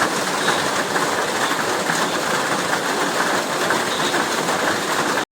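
Steady heavy rain, a dense even patter of drops, cutting off suddenly near the end.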